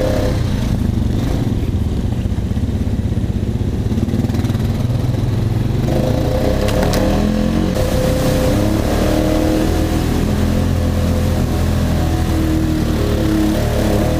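2015 Honda Rancher 420 ATV's single-cylinder four-stroke engine running under way on a muddy trail. It is duller and lower for a few seconds near the start, then pulls again with a rising pitch from about halfway through.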